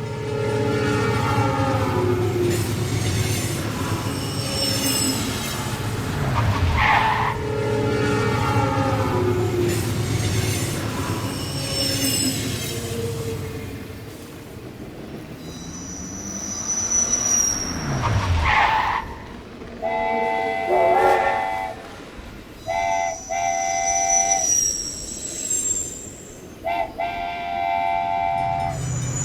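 Train sounds: a steady low rumble of a train running, with a pitch that falls twice as the train goes by. In the last third come several short horn blasts.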